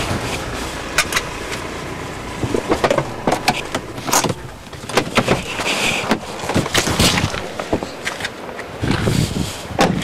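A BMW car being parked, heard from inside the cabin: a steady running noise with a string of sharp clicks and knocks scattered throughout.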